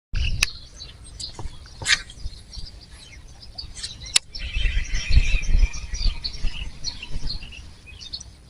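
Outdoor ambience with small birds chirping again and again, a few sharp clicks, and a low rumble of wind on the microphone.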